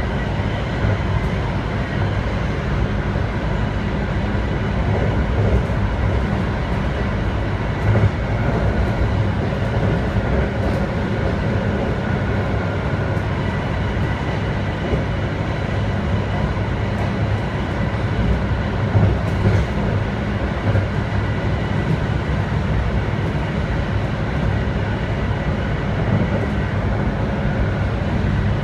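Steady running noise inside a BART car with Adtranz AC traction motors, cruising at about 67 mph: a deep wheel-and-rail roar with faint steady high whine tones riding above it. A few short louder bumps break in, about 8 and 19 seconds in.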